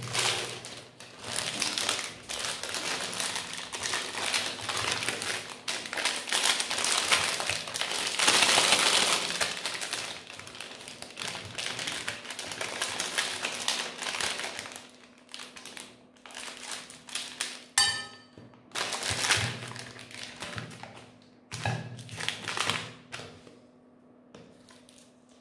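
Meat grinder crunching ice cream, a dense crackling grind loudest about a third of the way in, giving way after about fifteen seconds to scattered taps and knocks with a brief rapid clicking.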